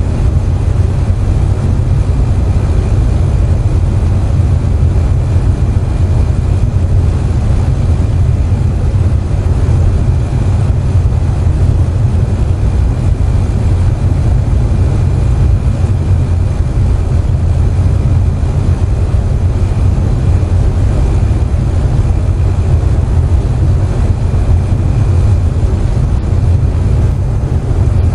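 An air conditioner running with a steady, strong low hum, mixed with the even hiss of falling rain.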